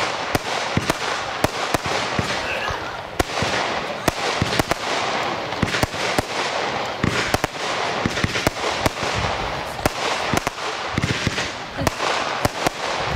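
Weco 'Walk of Fame' consumer firework battery firing shot after shot: sharp launch and burst reports several times a second over continuous dense crackling from the bursting stars.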